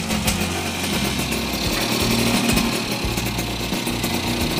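Freshly overhauled Yamaha RS100's single-cylinder two-stroke engine running steadily after being started, sounding healthy.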